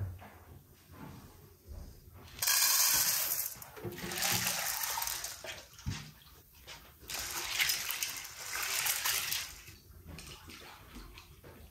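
Water pouring into an enamel basin of dried corn kernels, in three spells of one to two seconds each.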